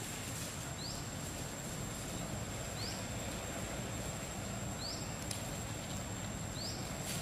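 Outdoor forest ambience: a steady high-pitched whine over an even background hiss, with a short rising chirp repeated about every two seconds.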